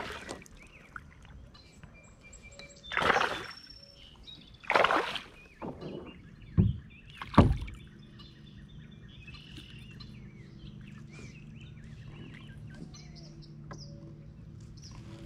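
A hooked largemouth bass being brought alongside a plastic kayak: several splashes and knocks in the first half. Afterwards birds call over a faint steady low hum.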